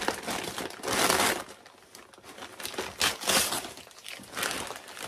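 Wrapping paper crinkling in irregular bursts as a parcel is unwrapped by hand, loudest about a second in and again about three seconds in.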